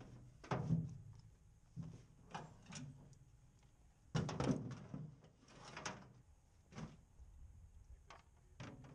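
A string of irregular knocks and thuds, about eight in all, the loudest about half a second in and again about four seconds in.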